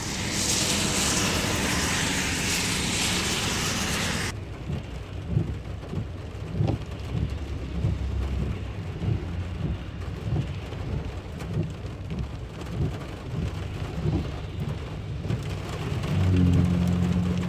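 Heavy rain pouring in a steady hiss, cut off abruptly about four seconds in. Then gusty storm wind rumbles and buffets the microphone in irregular low surges. Near the end the rain hiss returns with a strong low wind rumble.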